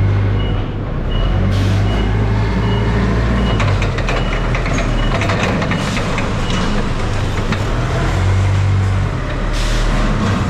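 Heavy farm machinery running steadily with a deep engine hum, while a reversing alarm beeps rapidly for the first second and a half and then stops.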